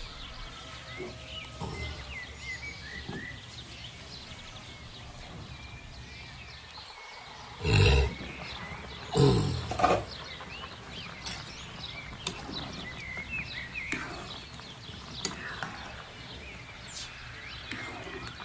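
Birds chirping steadily in the background, with two louder, short pitched calls from an animal about eight and nine and a half seconds in.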